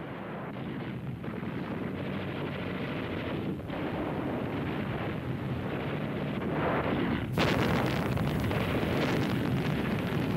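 Battle sounds of street fighting: a dense din of gunfire and explosions that slowly grows louder, with a sharper, louder blast about seven seconds in.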